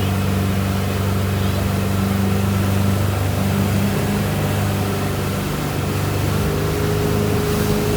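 Motorboat engine running at a steady speed, a low hum that holds level throughout.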